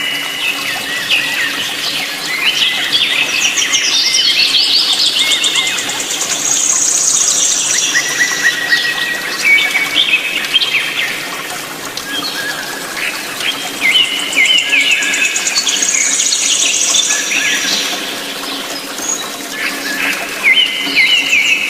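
A chorus of many small birds chirping and twittering together in dense, overlapping high calls, with the same run of calls coming round again about twelve seconds later.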